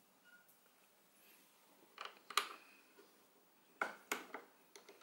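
A few faint, sharp clicks and taps of fingers working a fastener on a motorcycle's plastic side cover, about four in all, from about two seconds in.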